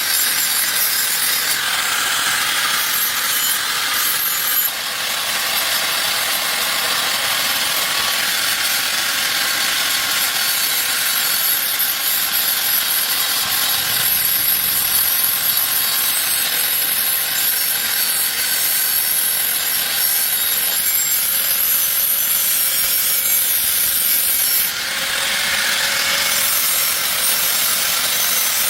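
Steady scraping, rasping noise of hand or tool work on a surface, continuous and without a clear rhythm, dipping briefly about five seconds in and again near the end.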